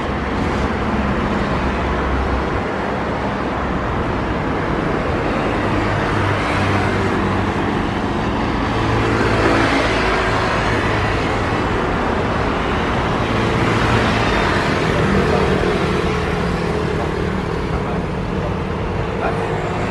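Steady engine noise with low droning tones, swelling and easing a couple of times.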